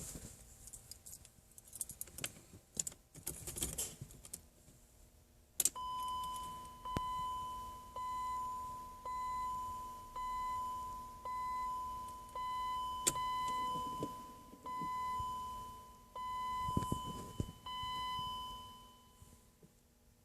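Car keys jangling and clicking, then the 1997 BMW 318i's warning chime sounding about once a second, a dozen even tones that each fade away, stopping near the end.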